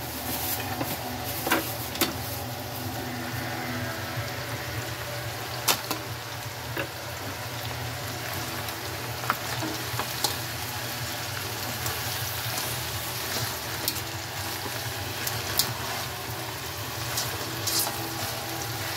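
Leftover swimming crabs sizzling in oil in a wok as they are reheated and stirred with a plastic spatula. Several sharp clicks come from the shells knocking against the spatula and the wok.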